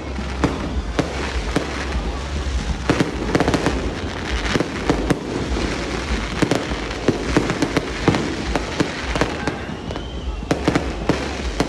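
Aerial fireworks display going off continuously: many sharp bangs and crackling pops in quick succession over a steady low rumble.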